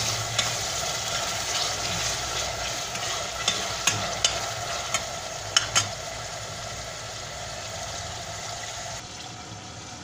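Chopped meat and onions sizzling as they brown in a stainless steel pot, with a metal spoon clicking and scraping against the pot a handful of times in the first six seconds. The sizzle quietens about nine seconds in.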